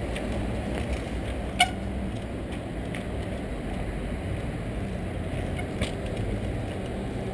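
Trials bike landing on concrete: a sharp knock with a brief metallic ring about a second and a half in, and a smaller knock near six seconds, over a steady low rumble of city traffic.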